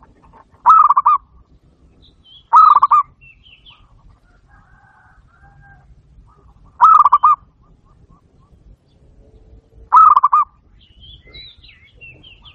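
Zebra dove (perkutut) cooing: four short, rolling coo phrases of about half a second each, a few seconds apart, with faint high chirps between them.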